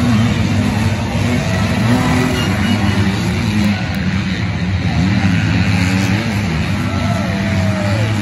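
Dirt-bike engines on the motocross track, several at once, revving up and dropping off over and over as riders accelerate, shift and back off.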